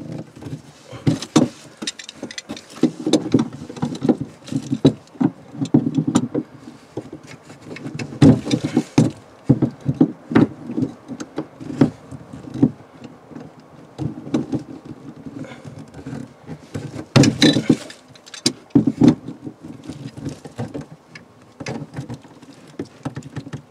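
Hands and a pair of pliers working at a stuck shower-drain fitting, making irregular knocks, clicks and rubbing. The fitting won't come loose, and the repairman suspects it was glued on.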